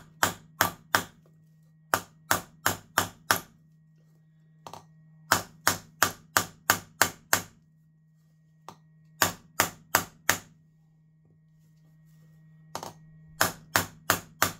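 Carbide-faced mason's hammer tapping around the seal of a Veeder-Root hub odometer's die-cast aluminum case: quick sharp metal-on-metal strikes, about four a second, in runs of five to seven with short pauses between. The blows are meant to break the crimped seal and pop the front face out, and the face has not given yet.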